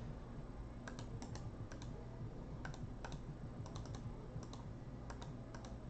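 Faint, irregular clicking of computer keyboard keys as lists are copied and pasted between a randomizer and a spreadsheet.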